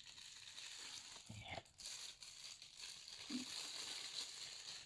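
Plastic packaging faintly crinkling and rustling as a camera's kit lens is unwrapped.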